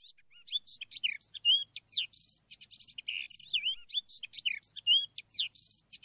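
Birds singing and chirping: many quick whistled notes sliding up and down, mixed with fast rattling chirps.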